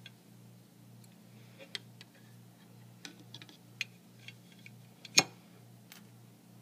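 Scattered light clicks and taps as titanium-handled folding knives are handled, the sharpest about five seconds in. Under them runs a faint low hum that pulses about twice a second.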